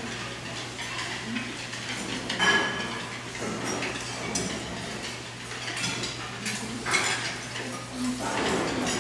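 Many diners' chopsticks and spoons clinking and scraping against plates and metal bowls, in scattered irregular clinks with the sharpest about two and a half seconds in and again near seven seconds. A steady low hum runs underneath.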